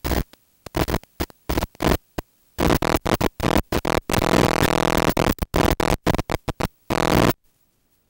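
Harsh electronic buzzing on the audio of a 5.8 GHz analog video link, chopping in and out many times at an irregular pace and cutting off suddenly about seven seconds in.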